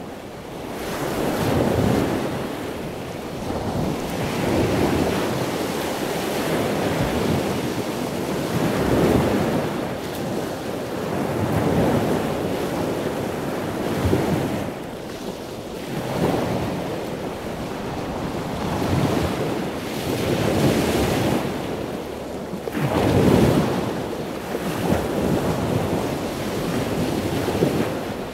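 Huge ocean waves breaking into churning whitewater, with heavy wind noise on the microphone; the rushing noise swells and eases every few seconds.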